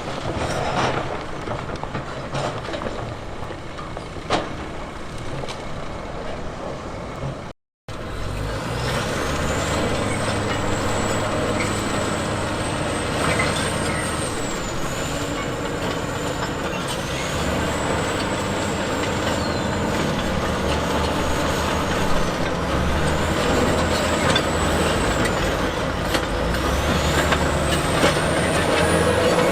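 Heavy diesel earthmoving machinery running under load, with a deep engine hum. A cut about eight seconds in leads to a louder, steadier engine. Over it, a high whine rises, holds and falls again about every three seconds.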